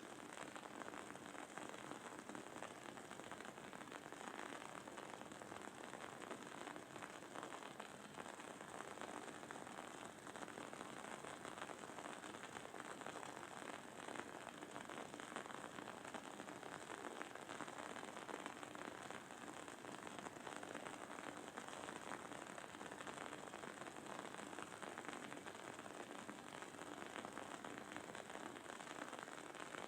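Wood-wick candle burning, its wooden wick giving a faint, steady, dense crackle and sizzle with no single loud pops.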